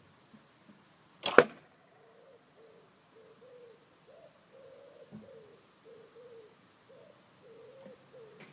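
A single recurve bow shot about a second in: the string's release followed a split second later by the arrow striking a thick styrofoam block target with a sharp thud. The bow's string is fitted with silencers.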